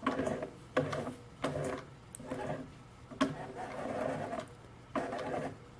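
Consew 333RB-1 double-needle industrial sewing machine stitching slowly through material, with sharp, irregular clunks from the needle and feed mechanism over a low steady motor hum.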